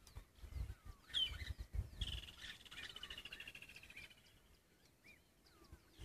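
Wild birds chirping in bushveld, with a fast, even trill lasting about two seconds in the middle. A few low thumps come in the first two seconds.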